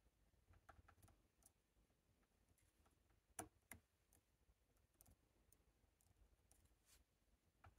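Faint, irregular metal clicks and ticks of a hook pick working the pin-in-pin stacks of a Chicago Lock Co tubular lock under tension, with one sharper click about three and a half seconds in.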